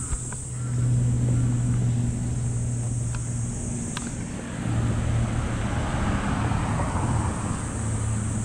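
Steady low hum of road traffic, with a vehicle passing in a broad swell of noise from about five to seven seconds in.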